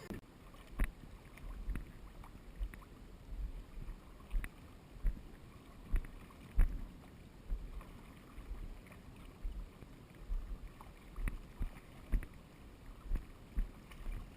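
Irregular knocks and low thumps from a small fishing boat on the river, one about every half second to second.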